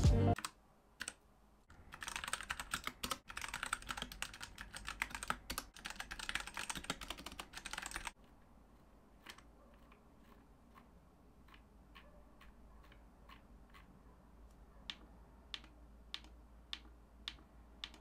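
Fast typing on a Royal Kludge RK96 mechanical keyboard with Gateron Red switches: a dense run of key clacks for about six seconds that stops abruptly. Then fainter, scattered single clicks as the keyboard's volume control wheel is worked.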